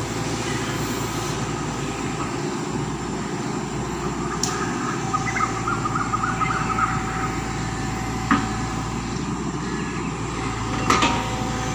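Tata Hitachi excavator's diesel engine running steadily as the arm and bucket dig in wet mud, with a few sharp knocks along the way.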